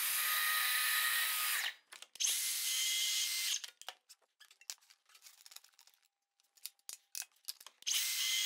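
Cordless plunge-cut circular saw running and cutting through MDF board along a guide rail, three short cuts in a row, each a dense whining hiss. Short clicks and knocks come between the cuts.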